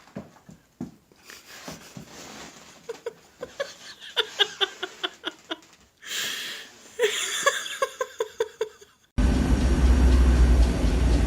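Scattered light clicks, then a person laughing in two runs of short repeated bursts. About nine seconds in, a sudden change to a loud, steady low rumble.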